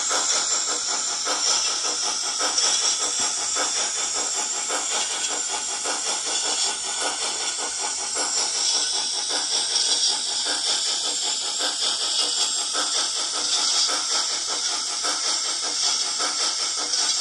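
YouChoos DCC sound decoder in an OO-gauge Hornby Royal Scot model playing steam locomotive exhaust through its small speaker: rapid, even chuffs with hiss, timed with the puffs of its smoke unit as it runs.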